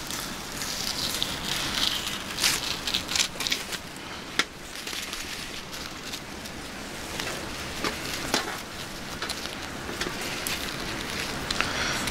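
Irregular crackling and ticking of a wood fire burning in a Solo Stove, mixed with a kitchen knife scraping and tapping on a stainless steel tabletop as flounder fillets are skinned and sliced.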